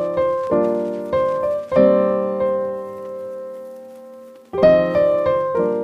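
Music of piano chords, struck one after another, with one chord held and dying away for about three seconds in the middle before more chords come in.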